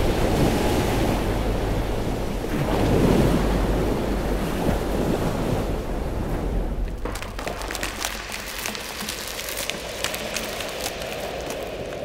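Deep rumbling drone under a rushing, surf-like noise that swells about three seconds in and then eases off; from about seven seconds in, a dense crackling joins it.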